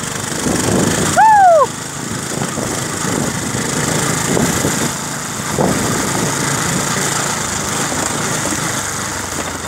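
Motorcycle engine running with wind noise while ridden. About a second in, a short loud tone glides up and then down; it is the loudest thing heard.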